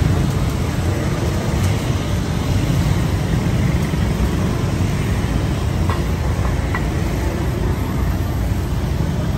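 Steady low rumble of street traffic, with a few light clinks of metal ladles and pots.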